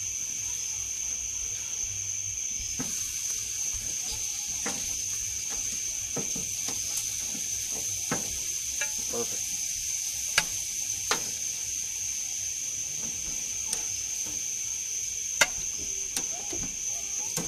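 Steaks sizzling on a hot barbecue grill grate, with a few sharp clicks from metal tongs as the steaks are lifted off. A steady high insect trill, like crickets, runs underneath.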